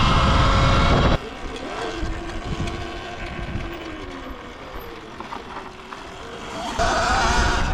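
Electric dirt bike riding. Wind buffets the microphone for about the first second, then it drops away suddenly. In the quieter stretch the motor's whine wavers and falls in pitch. Near the end wind noise and a rising whine come back.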